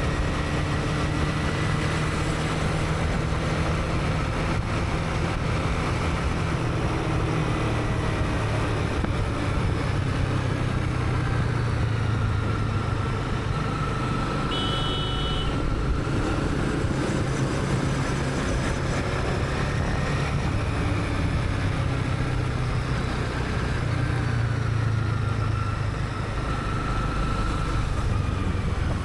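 Honda CB300R's single-cylinder engine running while riding through city traffic, its note rising and falling with the throttle. A short high beep sounds about halfway through.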